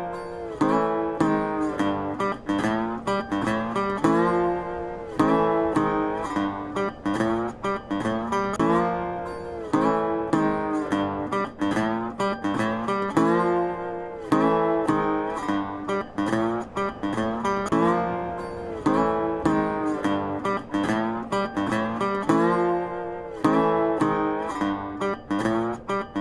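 Background music: a tune of plucked acoustic guitar notes in a steady rhythm.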